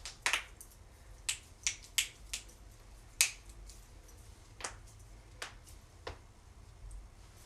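A person cracking their own joints: about nine sharp pops at irregular gaps, the loudest a little past three seconds in.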